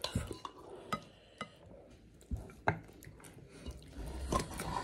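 Quiet eating at a meal: a few scattered light clicks and scrapes of a fork and spoon against a ceramic plate of biryani, with soft mouth sounds of chewing.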